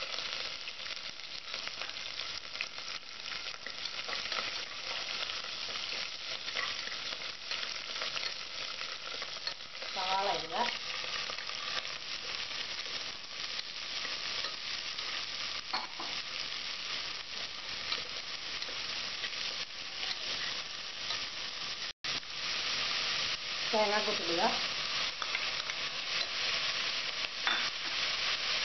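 Sliced onions and shallots frying in hot oil in an aluminium pressure cooker, a steady sizzle, while a plastic spatula stirs and scrapes them against the pot. The sound cuts out for an instant about two-thirds of the way through.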